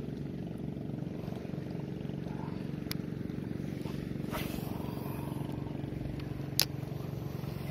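Steady drone of a boat engine, with a sharp click about three seconds in and a louder one about six and a half seconds in.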